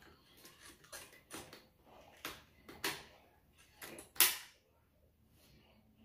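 Light plastic clicks and knocks as a Roomba S9's rubber extractor roller is handled and fitted back into its cleaning head. There are about half a dozen separate clicks, and the loudest snaps just after four seconds in.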